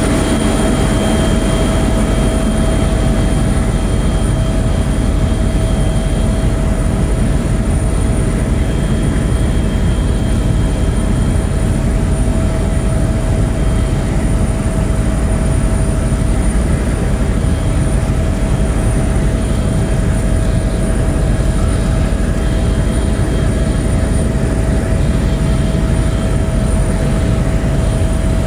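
Steady drone of a small propeller aircraft in flight, heard from inside the cabin: a constant low rumble with a steady whine running through it.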